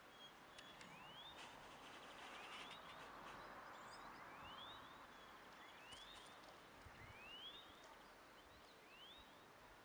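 A bird in the distance repeating a short rising call about once a second, over faint outdoor background noise with a few light clicks.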